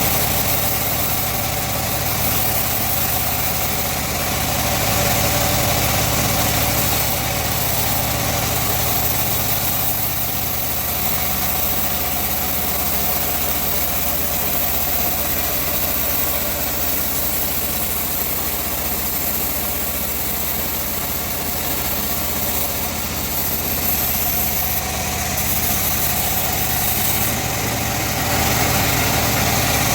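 Sawmill machinery running steadily while teak is sawn, an engine-like drone that holds an even level with no distinct strikes.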